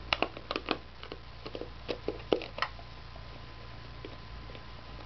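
Basset hound licking and mouthing a plastic yoghurt cup: a quick run of irregular wet clicks and crinkles for the first two to three seconds, then only faint scattered ticks.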